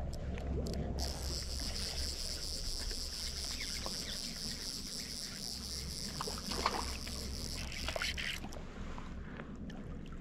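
Fly reel's clicker drag buzzing steadily for about seven seconds while a hooked trout is played, then cutting off. Under it runs a low rumble of wind on the microphone.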